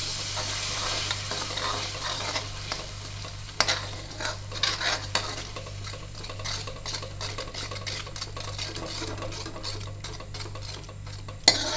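A steel spoon stirring and scraping tomato paste into frying onion masala in a metal kadai, in repeated scraping strokes over a light sizzle, as the masala is roasted (bhuna). A steady low hum runs underneath.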